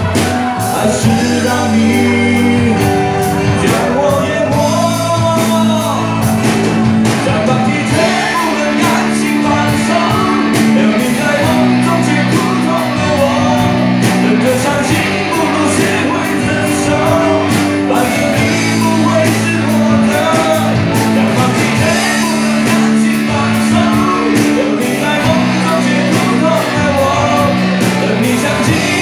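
Live rock band performance with a singer: a sung melody over held bass notes and a steady drum beat.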